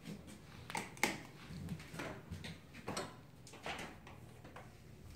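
Footsteps walking through the house, a soft knock about every two-thirds of a second, with one sharper knock about a second in.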